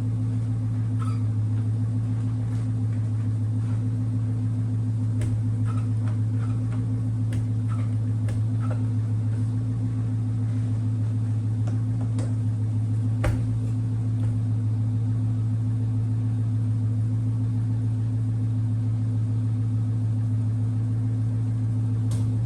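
A steady low machine hum with no change in pitch, with a few faint clicks and taps over it.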